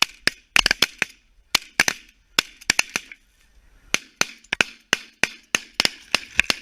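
A rapid volley of shotgun fire from several hunters shooting at snow geese over decoys: about two dozen sharp overlapping shots in quick clusters, with a short lull a little past halfway before the shooting picks up again.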